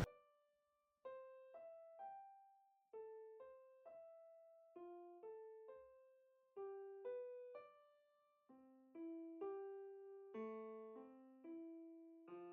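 Quiet background music: a slow, gentle piano melody of single notes, each fading out, with lower notes joining about two-thirds of the way in.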